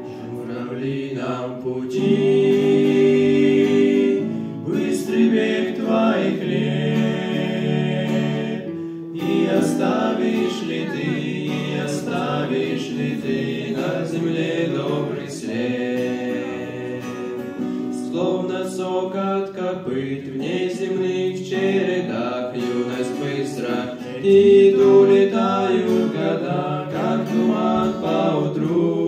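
Three young male voices singing a song together over an acoustic guitar.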